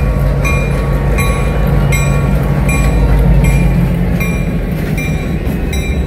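Diesel switcher locomotive passing at low speed, its engine running loudest about three seconds in and then easing as the passenger coaches roll by. Its bell rings steadily, about one stroke every three-quarters of a second.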